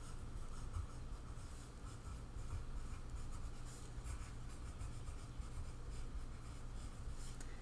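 Pencil writing on lined paper: a continuous run of faint scratching strokes as words are written, over a steady low hum.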